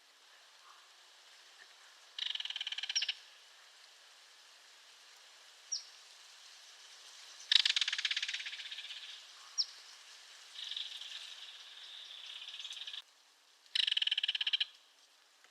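Belted kingfisher giving its dry rattle call: three rapid rattling bursts, the middle one the longest and trailing off. Two brief high chirps and a quieter steady high trill fall between the rattles.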